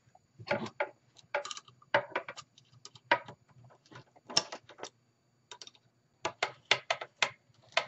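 A band clamp's metal tightening mechanism clicking in short irregular runs, some about four or five clicks a second, as its strap is drawn tight around a Bakelite radio cabinet.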